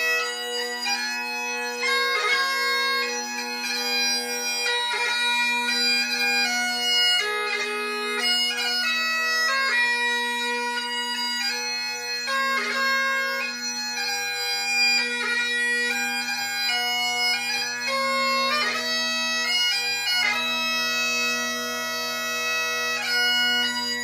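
Great Highland bagpipe played solo: a chanter melody moving from note to note over the steady hum of the drones.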